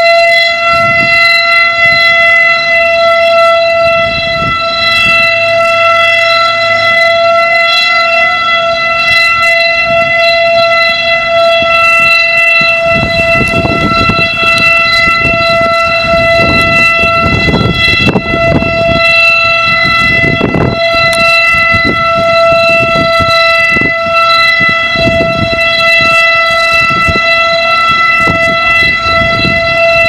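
Federal Electric Type B rotating outdoor warning siren sounding a full-alert signal: one loud, steady tone held at a constant pitch.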